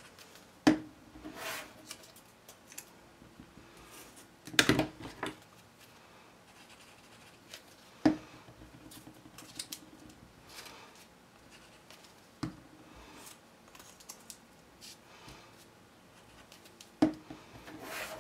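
Cardstock circles being handled and glued together on a tabletop: soft paper rustling and scraping, with five sharp knocks about four seconds apart.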